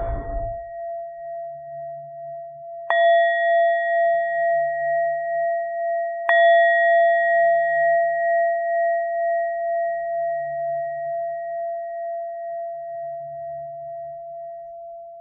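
Meditation bell ringing out, struck again about three and six seconds in. Each strike is a sudden clear tone that hangs and slowly fades with a gentle pulsing waver. These are the three strikes that signal the end of the final relaxation. A soft low thump comes at the very start.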